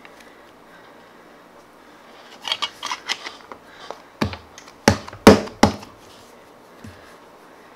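Clear plastic lid of a popsicle-shaped slime container being fitted on and pressed shut: a run of small plastic clicks and taps, then several sharp snaps as it clicks into place.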